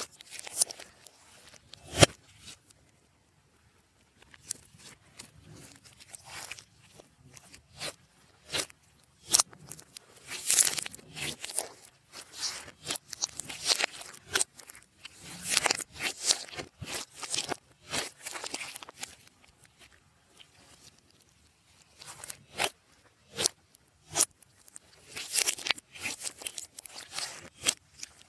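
Slime being mixed and squished by hand: irregular clicking and crackling as it is pressed, stretched and folded. There is a sharp, loud click about two seconds in and a brief lull soon after.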